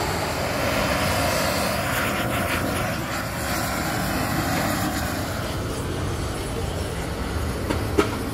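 Steady roar of a gas torch flame drying sand casting moulds, with a single sharp knock near the end as a metal mould flask is handled.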